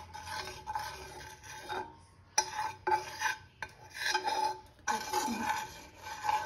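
A steel spoon scraping and rubbing round a frying pan, spreading butter over it, in a run of rasping strokes. There are short breaks about two and three and a half seconds in, and a sharp tap of the spoon just after the first break.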